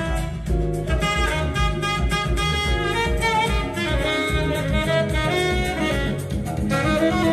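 Jazz with saxophone lead and drum kit, played from a vinyl record on a turntable through a hi-fi system.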